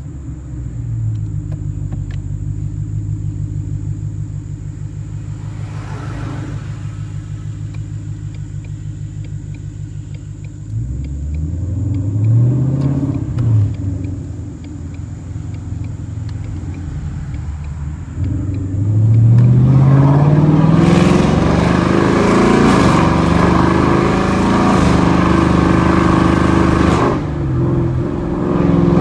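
2020 Ford Mustang GT's 5.0-litre V8 through a straight-piped MBRP cat-back exhaust, idling with an even pulse. There is a short rev about twelve seconds in, then a long climb in revs held loud for about seven seconds, with a broad hiss over the exhaust note, before it drops back.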